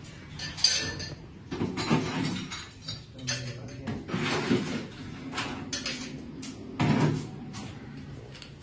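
Irregular knocks and clatter of bar work: glassware and ice being handled as ice is scooped from a cooler, with a sharp knock about half a second in and a louder one about seven seconds in.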